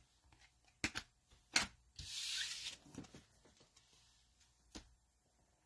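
Trading cards being handled: a few light clicks and taps, with a brief rub of cards sliding against each other about two seconds in.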